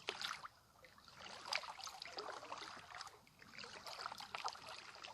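Boat paddles dipping and splashing in pond water in uneven strokes, with small knocks mixed in.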